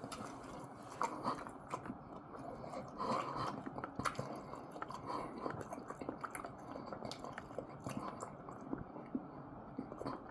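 A person chewing and biting food, with irregular small clicks and smacks from the mouth.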